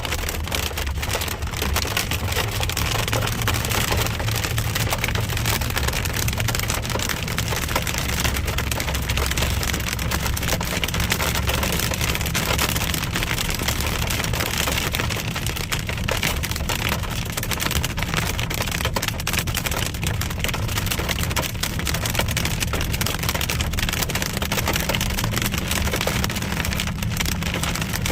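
Hail storm pelting the roof and windshield of a moving car: a dense, steady patter of impacts over a continuous low road and engine rumble.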